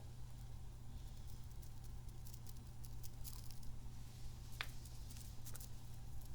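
A small plastic kidney-bean squeeze toy handled close to the microphone: faint, scattered light clicks and taps, with one sharper click about four and a half seconds in, over a steady low hum.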